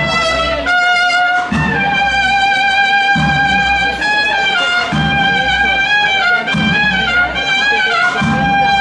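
Brass band playing a slow, melodic march: trumpets hold long notes that step from one pitch to the next, over a low beat that comes about every second and a half.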